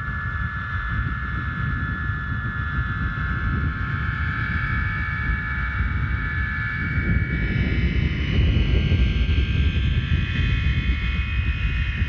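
Homemade Aeolian harp with fishing-line strings on a plastic-pipe frame, sounding in the wind: a chord of several steady high overtones over a low rumble of wind on the microphone. About seven seconds in, the wind strengthens and higher overtones swell in.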